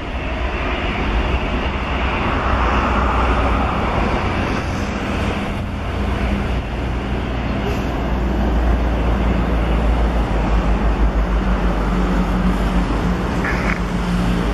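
Jet engine noise from a Boeing 737 MAX 8 climbing away after takeoff: a steady, loud rumble with a deep low end.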